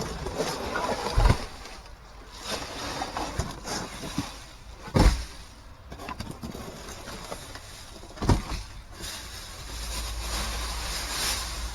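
Trash being shifted and dropped in a dumpster: rustling handling noise broken by three heavy thumps spread a few seconds apart.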